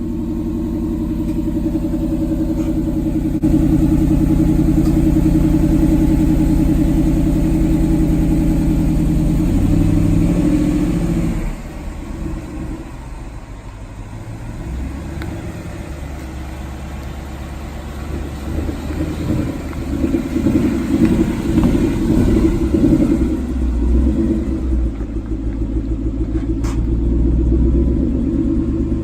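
Ford Mustang GT's 5.0 V8 engine running and being revved. It is steady for the first ten seconds or so, drops back, then goes choppy and uneven in the second half.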